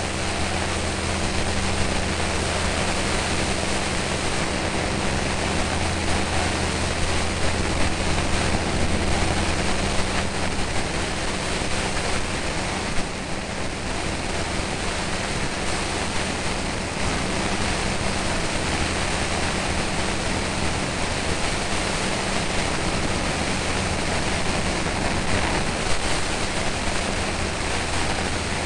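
A light aircraft's engine and propeller running at a steady low hum, under a constant rush of airflow on the camera's microphone during the climb-out after take-off.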